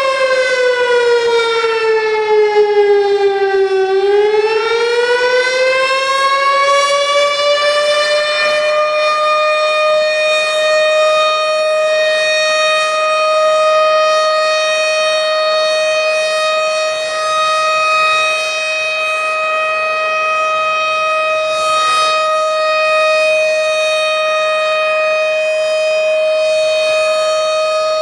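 Tornado warning siren sounding one loud, continuous tone. Its pitch falls for about four seconds, rises back over the next five, then holds steady.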